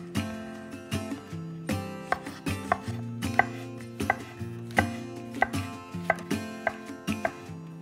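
A knife chopping food in an even rhythm, about three strokes a second, with background music under it.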